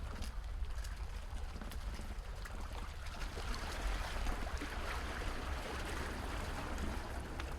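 Water trickling and splashing, growing fuller partway through, over a steady low rumble.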